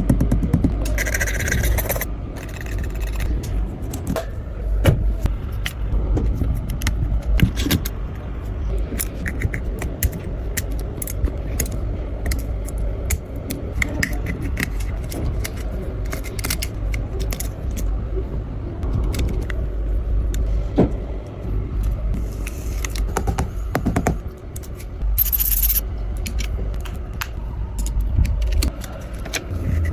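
Small repair tools scraping, clicking and tapping against an iPhone's glass and frame during back-glass and screen repair, over a steady low rumble.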